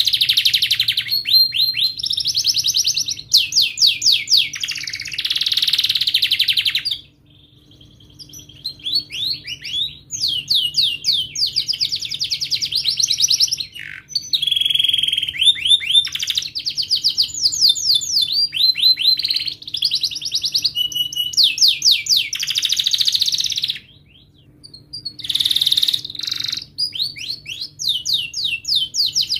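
Domestic canary singing: a long, high-pitched song of fast rolling trills and chirps, with short breaks about seven seconds in and again near twenty-four seconds.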